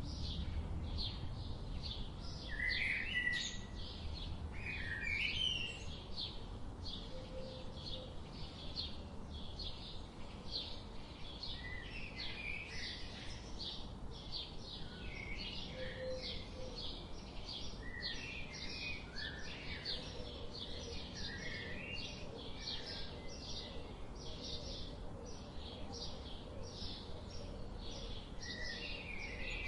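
Wild birds calling: a steady series of short, high chirps repeated about twice a second, with other birds' lower warbling phrases in between, over a low background rumble.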